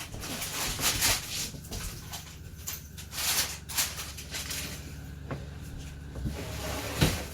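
Crunching and chewing of an apple slice dipped in caramel, a string of short crisp crunches, with a sharp click about seven seconds in.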